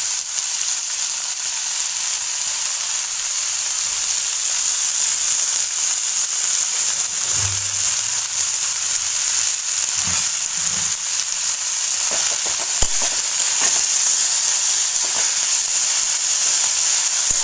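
Fresh fenugreek leaves and green chillies sizzling in hot oil in a kadai, a steady high hiss, with a few light knocks and a steel spoon stirring them near the end.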